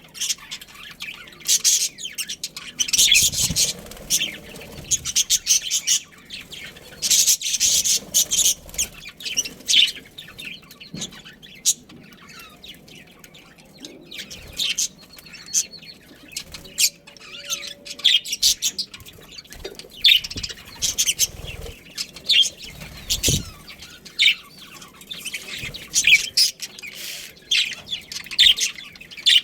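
Budgerigars chirping and chattering, a busy stream of short high calls coming in clusters, with the odd soft thump.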